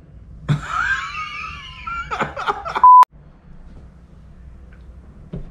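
A man's long, wavering laughing cry, its pitch sliding, for about two seconds, followed about three seconds in by a short, loud 1 kHz censor bleep.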